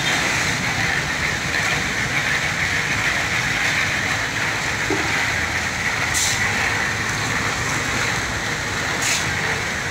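Steady running of a portable concrete mixer, its engine and turning drum making an even noise, with a few short sharp clicks on top.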